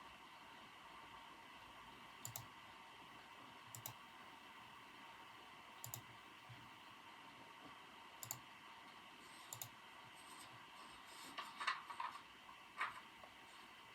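Faint, sparse computer keyboard keystrokes: single or paired key clicks every couple of seconds, then a quicker run of several keys near the end, over a steady soft background hiss.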